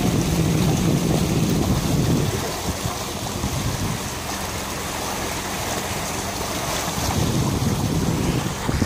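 Water rushing and splashing along a sailing yacht's hull at the bow, with wind buffeting the microphone; the rush swells in the first couple of seconds and again near the end.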